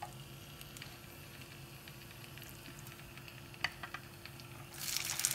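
Oil crackling faintly in a hot pan, with a couple of light clicks about three and a half seconds in. Near the end a loud sizzle starts as a masala-coated whole fish is laid into the hot oil.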